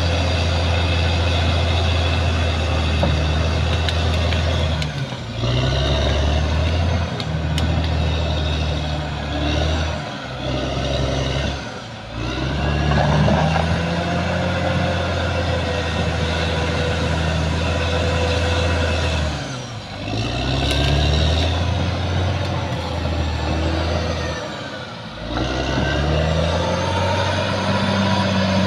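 Caterpillar D6R XL bulldozer's diesel engine running hard as the dozer works, its note dipping and climbing back again about five times.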